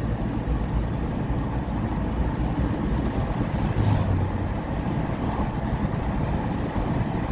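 Car driving along a road, heard from inside the cabin: a steady road and engine rumble, with a brief knock about four seconds in.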